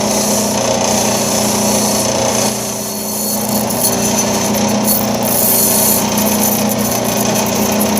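Band saw running loud and steady with a low motor hum, its blade cutting through high-density styrofoam with a hiss that swells and eases as the foam is fed.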